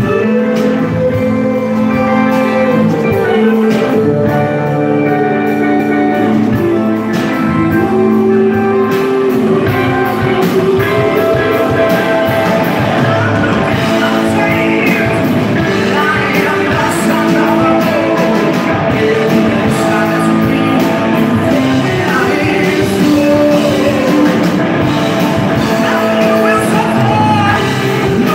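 A rock band playing live and loud: a singer over electric guitar, keyboard and drums.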